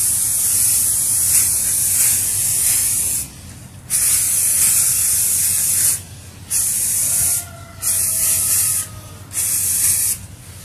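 Rust-Oleum aerosol spray can spraying primer, hissing in bursts: one long spray stops about three seconds in, then four shorter sprays of one to two seconds each follow with short pauses between.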